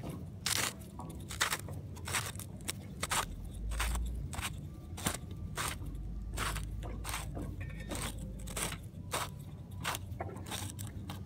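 Plastic irrigation cap being unscrewed by hand: irregular scraping, crunching clicks, about one or two a second, as the threads turn and the hand works against the grass around it.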